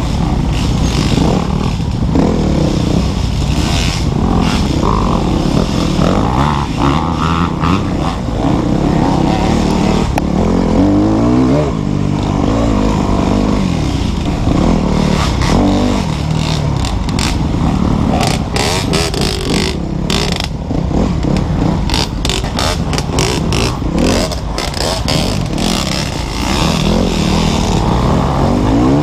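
250cc off-road dirt bike engine revving up and down as it works along a tight, bumpy woods trail, its pitch rising and falling with each throttle burst. Many knocks and rattles from the bike jolting over the rough ground, thickest in the second half.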